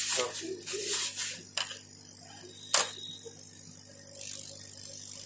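Handling noises as a hard-drive circuit board is moved about and set down on a wooden workbench, with one sharp click about three seconds in. Under it is a steady electrical hum with a thin high whine, and a hiss rises near the end.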